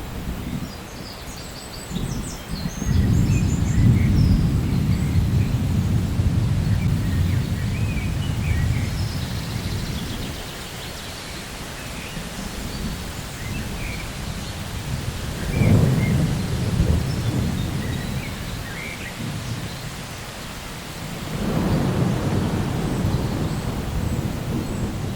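Thunder rolling in three deep rumbles over steady rain: a long roll that builds about two seconds in and fades slowly, a sharper clap-and-rumble a little past the middle, and a third roll near the end.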